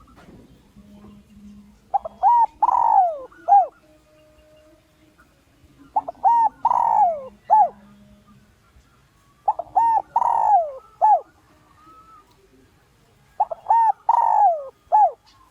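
Spotted dove cooing: four phrases about four seconds apart, each a few short coos around one longer, louder falling note. It is the call used as a decoy to provoke wild males into coming in to fight.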